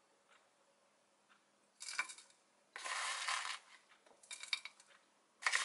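Kitchen handling sounds: a plastic container and spoon clattering as nuts are scooped and sprinkled over a bowl of yogurt, in a few short bursts of rattling and clicking.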